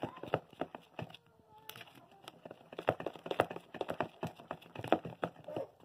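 Spatula beating thick cake batter in a bowl: an irregular run of soft knocks and wet slaps as it strikes the bowl, a few times a second.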